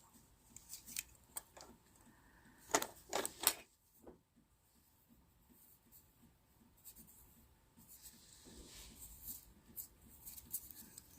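Light clicks and clinks of small metal pieces being handled, with a quick group of three about three seconds in, then faint handling rustle.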